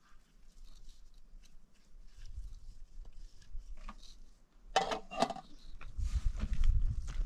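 Metal pots and dishes clinking and scraping as they are washed by hand in a plastic basin, with two louder ringing clanks about five seconds in. A low rumble comes in near the end.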